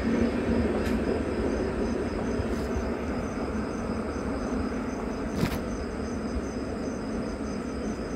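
Crickets chirping in an even, rapid pulse over the low rumble of the Pothigai Express coaches on the rails, fading slowly as the train pulls away. A short click comes about five and a half seconds in.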